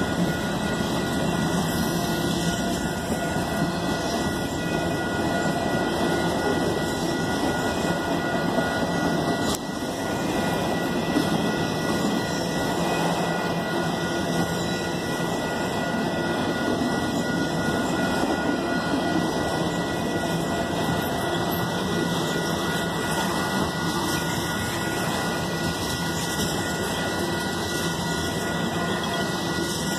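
Freight cars rolling past at speed: a steady rumble and clatter of steel wheels on the rails, with thin steady high tones running through it.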